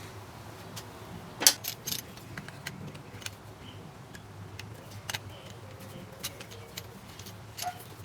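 Scattered small clicks and clinks of a hose-repair end's compression halves being handled and screwed together with a Phillips screwdriver, the sharpest click about a second and a half in, over a low steady hum.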